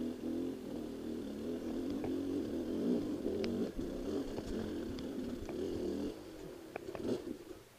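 Dirt bike engine running at low revs, a steady pulsing rumble, with scattered sharp clicks and knocks from the bike over rough ground. The engine sound drops about six seconds in and stops just before the end.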